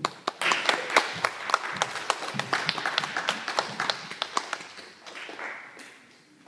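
A group applauding: quick, overlapping hand claps that die away after about four to five seconds.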